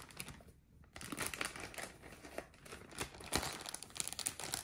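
Plastic zip-top freezer bags crinkling as they are handled to hold portions of raw chorizo. The irregular crackling starts about a second in.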